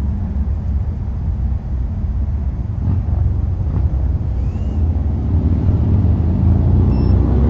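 Portable generator engine running steadily, a continuous low hum.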